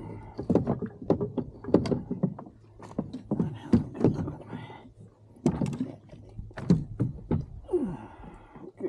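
Irregular knocks and thumps on a plastic fishing kayak as a freshly caught bass is handled on the deck: a dozen or more sharp, uneven strikes spread over several seconds.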